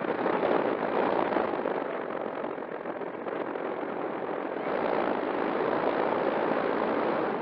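Electric motor and propeller of an E-flite Air Tractor RC plane running under power, heard from a camera on its nose as a loud, steady rush of prop wash over the microphone. It eases a little in the middle and picks up again about five seconds in.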